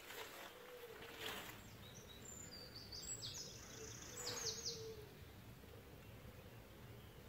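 Faint outdoor background with a bird giving a few short, high chirps in the middle. Two brief rustling noises come about a second in and again past four seconds.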